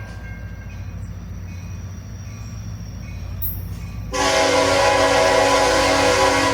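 Diesel locomotive rumbling as it approaches, then about four seconds in its air horn sounds one loud blast of several tones at once, held about two seconds.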